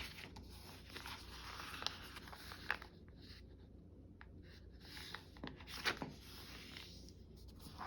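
Faint rustling of paper being handled, with a few light taps and ticks.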